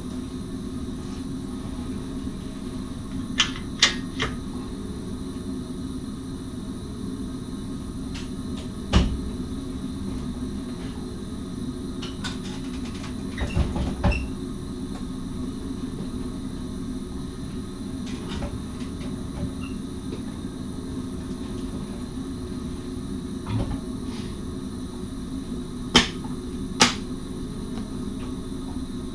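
Steady hum in the driving cab of an SGMM Sprinter electric train standing still before departure, with scattered sharp clicks and knocks: a pair a few seconds in, one about nine seconds in, a short cluster around fourteen seconds and two more near the end.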